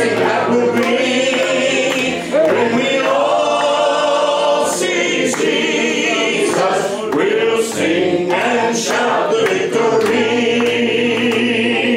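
A congregation singing a gospel hymn together, many voices holding long notes.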